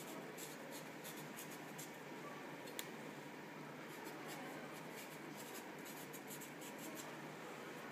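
Kitchen knife blade scraping along a raw carrot as it is peeled in the hand: a run of faint, quick, irregular scraping strokes, with one sharper click about three seconds in.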